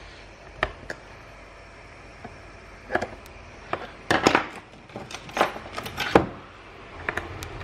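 Plastic case parts of a FNIRSI SWM-10 mini spot welder clicking and knocking as they are handled and pried at during disassembly: about half a dozen sharp ticks spread over several seconds, the loudest about six seconds in.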